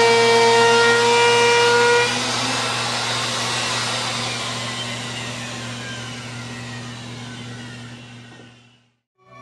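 Router motor running at full speed with a steady high whine, switched off about two seconds in and winding down, its pitch falling as the bit coasts to a stop. A steady low hum runs underneath, and everything fades out near the end.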